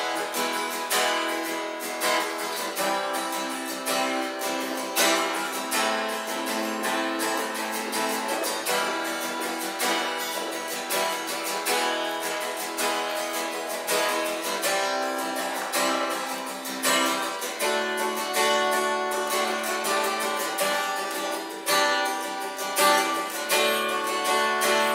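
Acoustic guitar strummed in chords with an even, regular stroke, an instrumental break with no singing.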